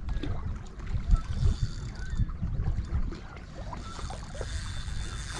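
Water lapping, with wind rumbling on the microphone and scattered small clicks.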